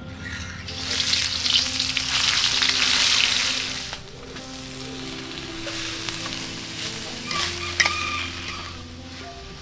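Spice paste frying in hot oil in a wok, sizzling loudly for the first few seconds, then settling to a quieter sizzle as shredded chicken goes in and is stirred. A metal spatula clinks against the wok about eight seconds in.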